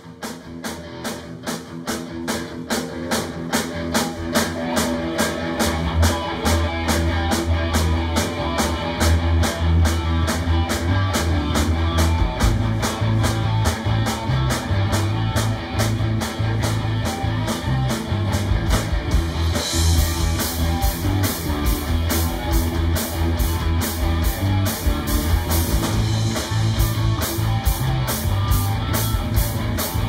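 Rock band playing an instrumental passage on drum kit, electric guitars and bass guitar: a steady drum beat fades in, the bass comes in after a few seconds, and the cymbals grow brighter and louder about two-thirds of the way through.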